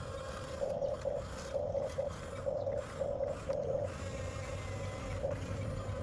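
Electric drive motors and gearboxes of a Huina 1/14 scale RC bulldozer whining in short pulses, about two a second for the first few seconds, then more evenly, as the controls are worked on and off.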